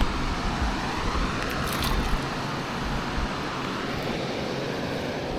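Steady rushing roar of water pouring through a dam spillway, with a low rumble underneath.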